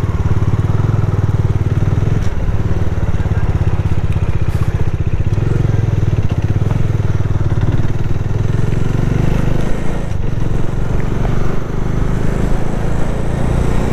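Motorcycle engine running under load as the bike pulls away from a standstill and picks up speed, with a steady, dense beat of firing pulses.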